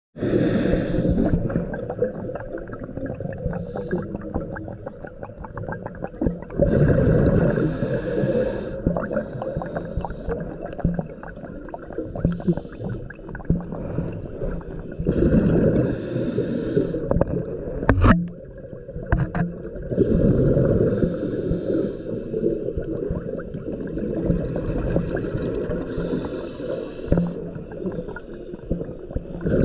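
Scuba diver breathing through a regulator underwater: a hissing, bubbling burst about every four to five seconds over a steady low rumble. One sharp click about halfway through.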